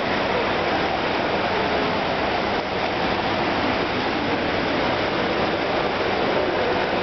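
Steady rushing ambience of an indoor swimming pool hall, an even noise that does not change.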